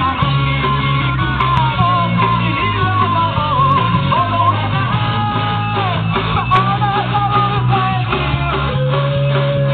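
Rock band playing live: electric guitars, bass and drum kit. A wavering lead melody runs over a steady bass and ends on a long held note near the end.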